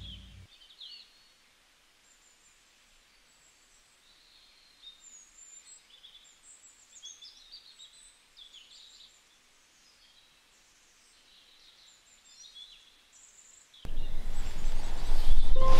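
Faint birdsong: scattered high chirps and twitters. About fourteen seconds in, loud music cuts in abruptly.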